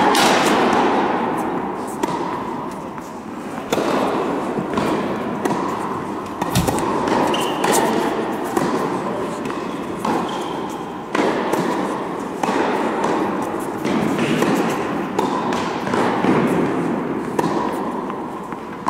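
Tennis ball hit back and forth in a rally: sharp racket strikes and court bounces about once a second, each one echoing in a large indoor hall.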